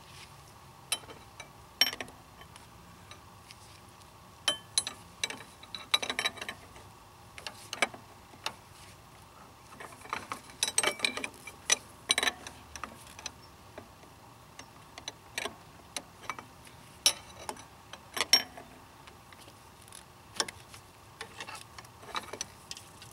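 Hand tools clinking and knocking against metal parts deep in a car's engine bay, as irregular sharp clicks with small clusters of quick taps.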